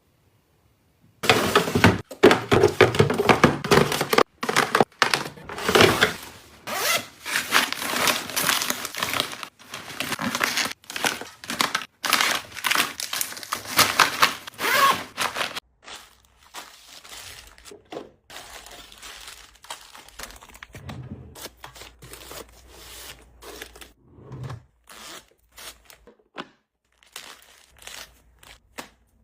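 Packaging being handled by hand: dense crinkling and tearing for about fourteen seconds, starting after a moment of silence, then quieter scattered clicks and rustles.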